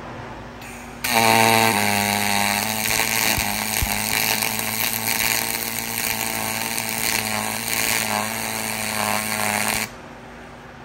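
A YesWelder YWM-211P pulse MIG welding arc on aluminum, set to 17 volts and 90 amps. It strikes about a second in and runs for about nine seconds as a steady pitched buzz over a crackling hiss, then cuts off suddenly near the end.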